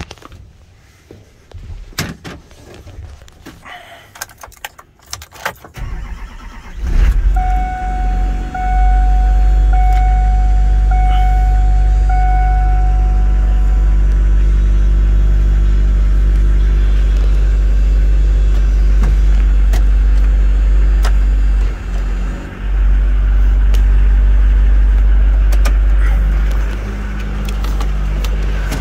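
Keys jangling and clicks in the cab, then the 2005 Chevrolet C4500's 6.6-litre turbo-diesel V8 starts about six seconds in and runs at a steady, loud idle. A dashboard warning chime beeps five times, evenly spaced, just after it starts.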